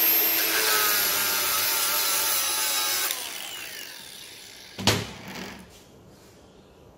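Cordless angle grinder with a cutting disc cutting through the metal band that clamps a CV boot onto a driveshaft's inner joint: a loud high whine with a gritty cutting hiss. About three seconds in it is let off and winds down with a falling whine, and a single sharp knock comes about five seconds in.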